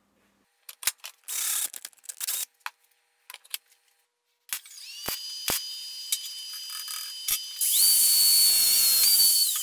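Steel nuts clinking and rattling as they are handled in a plastic parts bin. Then a steady high electric whine, and near the end a small power-tool motor runs for about a second and a half and winds down.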